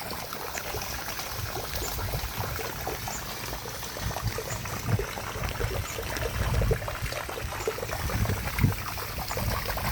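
Floodwater trickling and sloshing, with a few soft low thumps in the water.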